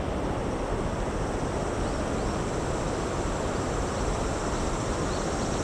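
Steady rush of flowing river water, an even unbroken noise.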